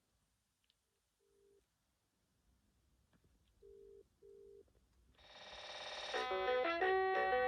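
BT Paragon 550 telephone: two pairs of short, low single-pitch beeps, then a new electronic ringtone melody that swells in from about five seconds in and plays at full level near the end.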